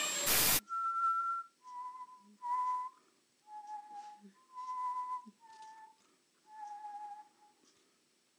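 A person whistling a string of about seven short notes, each held at a steady pitch, stepping up and down with gaps between them. A brief loud noise of a cut between clips comes at the very start.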